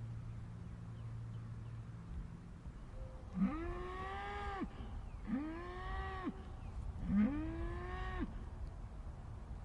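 Cow mooing three times, each moo about a second long, rising at the start, held, then dropping off at the end.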